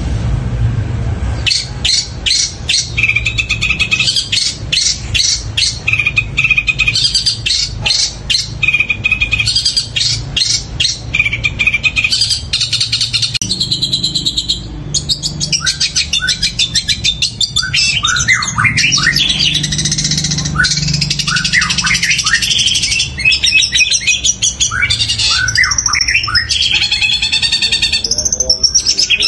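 Long-tailed shrike (cendet) singing loudly and without pause. It starts with rapid harsh chattering notes, then from about halfway gives a run of quick downward-sliding whistles. The song mixes in mimicked calls of fighting tree sparrows.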